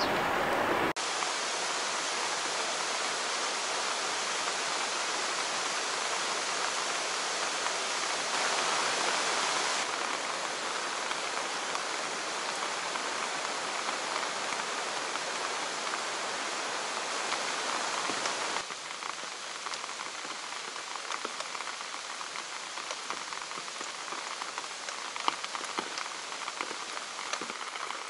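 Steady rain falling as a dense hiss. After about 18 seconds it drops to a softer patter in which single drops tick clearly.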